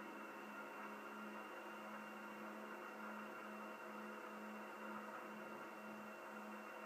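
Steady drone of a piston aircraft engine in flight, a low tone with a faint, regular pulsing.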